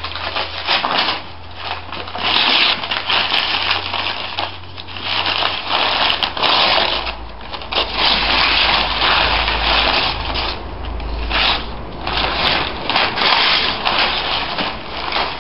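Masking paper and tape being peeled and torn off a freshly sprayed car windscreen, crackling and rustling in irregular bursts over a steady low hum.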